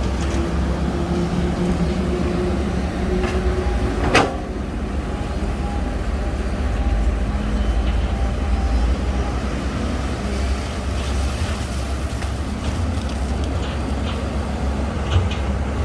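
Diesel engine of heavy earthmoving machinery running steadily, with a single sharp knock about four seconds in.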